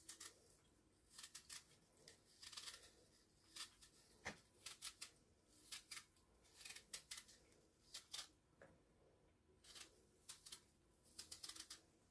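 Small kitchen knife peeling an apple by hand: faint, short scraping cuts through the skin, coming in irregular clusters of a few strokes with brief pauses between.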